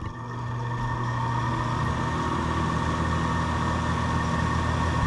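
Air conditioner running just after being switched on: a steady hum from its compressor and fan, growing louder over the first second and then holding steady.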